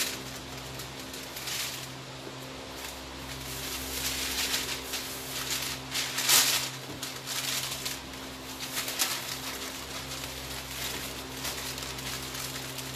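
Masking paper rustling and blue painter's tape being pulled off the roll and pressed down, in several short crinkling bursts, the loudest about six seconds in, over a steady low hum.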